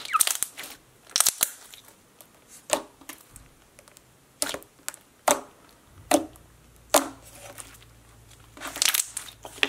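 Thick, glossy cloud-type slime being squeezed and kneaded by hand, giving about ten scattered sharp pops and squelches with quiet gaps between, bunched together near the end.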